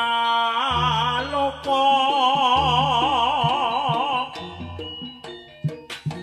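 Live Javanese jaranan gamelan music. A long, wavering high melody line holds for about four seconds over deep low notes, then gives way to lighter, sharper drum strokes near the end.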